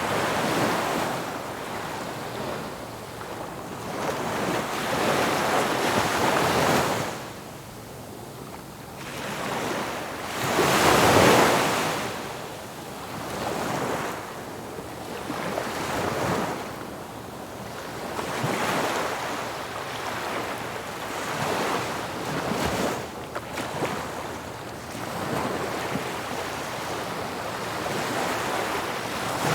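Ocean waves breaking and washing in, a rushing sound that swells and fades every few seconds, with the biggest surge about eleven seconds in.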